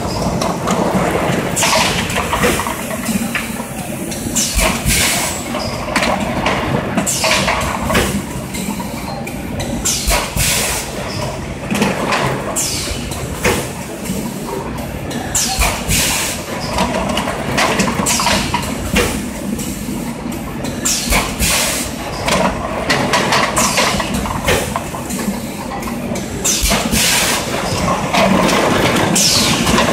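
BM A6 six-cavity PET stretch blow molding machine (6000 bottles per hour) running in production: a steady mechanical hum and clatter, with short hisses every one to three seconds.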